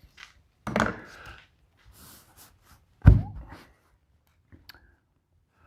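Knocks and a heavy thunk of parts being handled and set down, the loudest thud about three seconds in, with lighter clicks and a soft breathy murmur.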